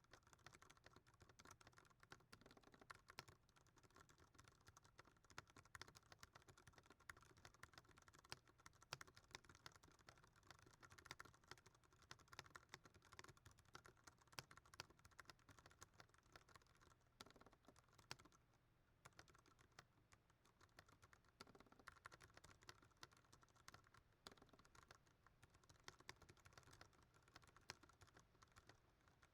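Fast, continuous typing on a Ducky One 2 Mini mechanical keyboard with Cherry MX Brown switches: a quiet, dense patter of key presses, with a short pause a little past halfway.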